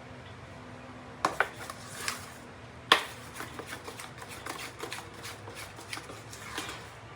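Kitchen clatter of utensils and dishes: a few sharp knocks, the loudest about three seconds in, then a run of lighter clicks and taps over a low steady room hum.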